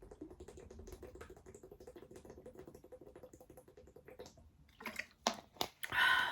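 Close-miked chewing of a soft, chewy mochi cookie: a dense run of small wet mouth clicks, then a few louder mouth sounds near the end.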